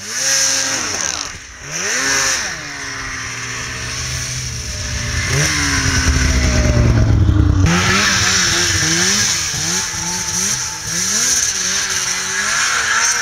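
Snowmobile engines revving. The first sled's engine climbs in pitch and grows loudest as it passes close by through deep powder, about six to seven seconds in. After a sudden change near eight seconds, another snowmobile's engine revs up and down repeatedly as it climbs a steep slope.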